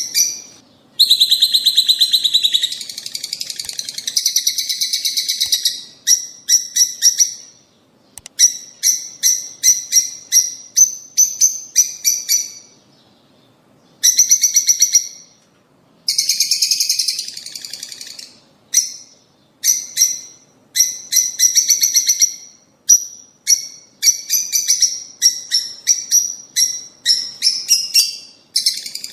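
Lovebirds (rosy-faced and Fischer's) chattering: high-pitched, rapid chirps in bursts of a second or two, with short pauses between them.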